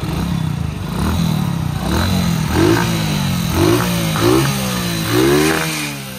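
Hero Splendor's single-cylinder four-stroke engine revved at a standstill in about six quick throttle blips, each rising and falling back, then settling toward idle near the end. It is breathing through an aftermarket Moxi air filter.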